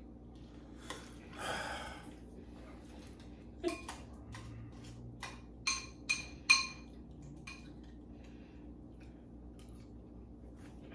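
A metal spoon clinking against a cereal bowl a few times, with three quick ringing clinks about six seconds in. There is a short rustle about a second and a half in.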